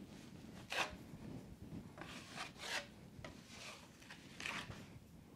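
Steel drywall taping knife scraping along a ceiling seam in several short strokes, smoothing wet joint compound over paper tape to bed it.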